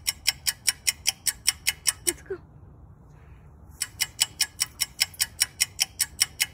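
A squirrel's alarm call: rapid, even chattering barks, about five a second, in two runs with a pause of nearly two seconds between them.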